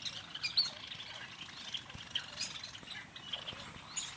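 A flock of small birds chirping and twittering, many short high chirps overlapping one after another.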